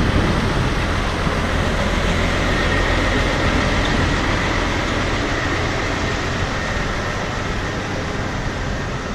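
Steady running noise of a moving vehicle: an even low rumble with hiss, without distinct knocks or rhythm.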